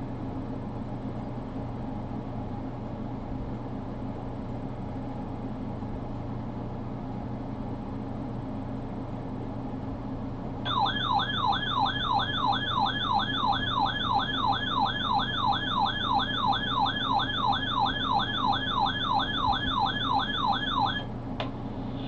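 Steady low electrical hum for about ten seconds. Then a weather radio receiver's alert alarm comes on, a warbling siren-like tone sweeping upward about three times a second, and cuts off after about ten seconds. It is sounding for a severe thunderstorm watch.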